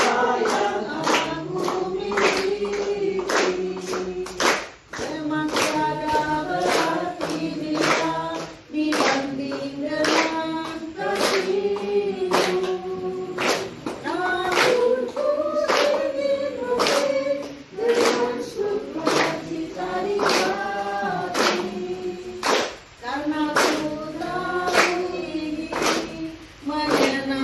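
A group of young people singing a song together in unison, clapping their hands in a steady rhythm as they sing.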